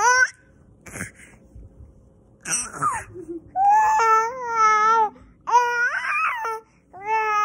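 An infant's voice: several long, high-pitched squealing cries, the longest about a second and a half, with short gaps between them.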